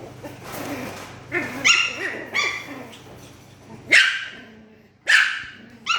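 Poodle puppy barking and yipping in play: a quick run of short high yips, then single sharp barks about four and five seconds in.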